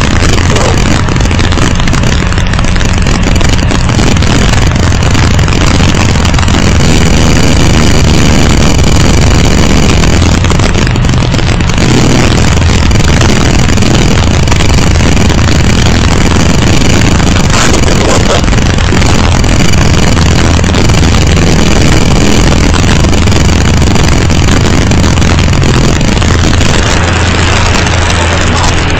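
A vehicle driving over a rough stone road, its engine running without a break under a dense rumble. The recording is loud and distorted.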